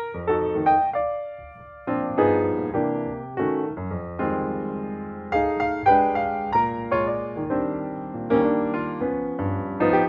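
Background music played on piano, a steady run of struck notes and chords.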